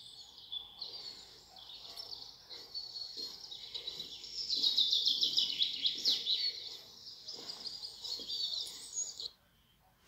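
Songbirds singing: a dense run of high, quick chirps and trills, loudest midway, that cuts off suddenly near the end.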